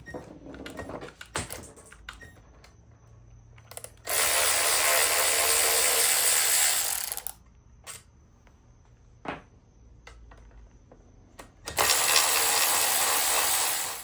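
A power tool runs in two steady bursts, about three seconds and then about two seconds long, backing out bolts on an outboard motor's lower gear case. Small clicks and knocks of tool and metal parts come between the bursts.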